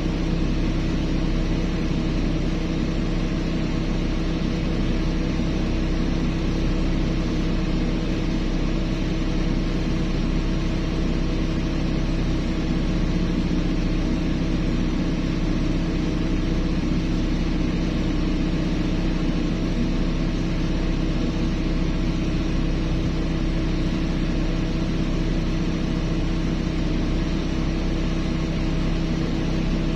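Heavy diesel engine of mining equipment running steadily, a constant hum that does not change.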